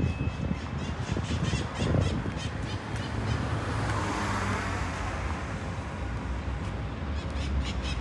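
Street traffic with one vehicle swelling past about four seconds in, while birds in the park trees give rapid, repeated squawking calls.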